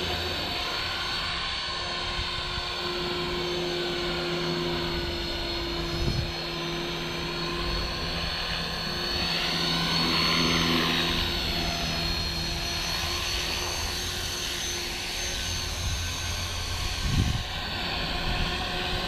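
Walkera V450D03 electric RC helicopter in flight: a steady motor and rotor whine whose pitch sweeps up and down about halfway through as it manoeuvres. Low wind rumble on the microphone, with a couple of gusts near the end.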